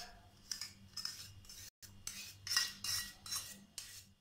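A metal spoon scraping thick condensed milk out of a small stainless steel bowl: a run of about eight quick scraping strokes, roughly half a second apart.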